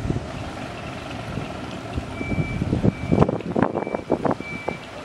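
An electronic warning beeper, like a vehicle's reversing alarm, sounding one high steady tone on and off, starting about two seconds in and repeating a little faster than once a second. A cluster of sharp knocks and clatters comes around the middle, over wind noise on the microphone.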